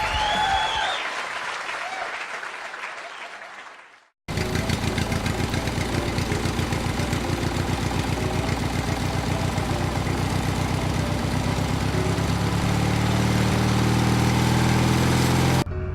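A vehicle engine idling with a steady, even pulse, starting just after a short silence about four seconds in and cutting off suddenly near the end. Before the silence, the previous music fades away.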